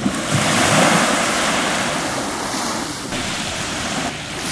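Small sea waves breaking and washing up a pebble shore, swelling about a second in and slowly ebbing away.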